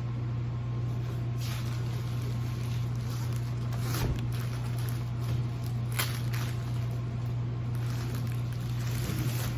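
A steady low hum underlies a few soft rustles of plastic packaging being pushed back into a cardboard box, with one sharp click about six seconds in.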